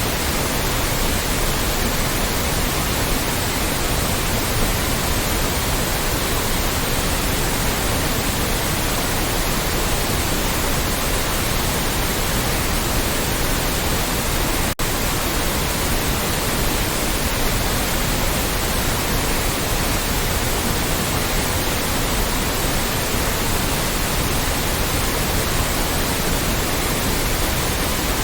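Loud, steady white noise, an even hiss across the whole range. It drops out for a split second about halfway through.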